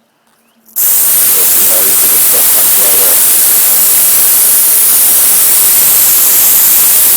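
Pressure washer wand spraying cleaner at very low pressure through a chemical injector, coming on suddenly about a second in as a loud, steady hiss.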